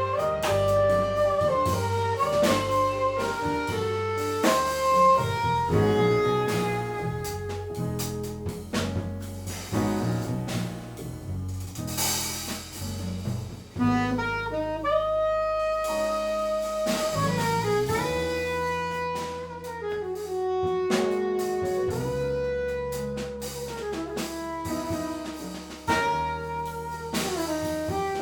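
Live jazz quartet: a tenor saxophone plays a melody of held notes over piano, upright bass and a drum kit.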